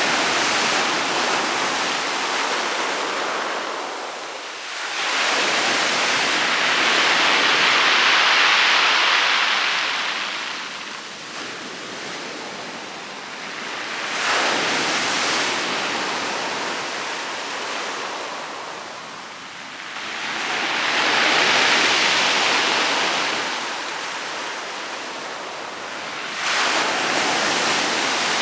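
Rough sea waves breaking on a pebble beach, each one surging in and washing back over the stones. Five waves arrive in turn, about one every five to six seconds, the strongest about a third of the way in and again about three quarters of the way through.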